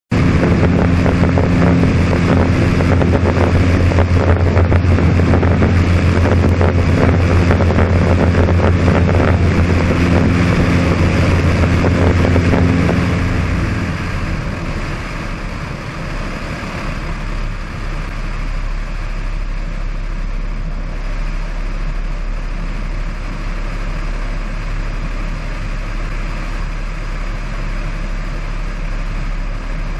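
Cessna 172 floatplane's propeller engine running at cruise power, with wind rushing over the outside microphone. About 13 seconds in, the throttle is pulled back to idle for a simulated engine failure. After that the engine's pitch drops out, leaving mostly steady airflow noise over a low hum as the plane glides.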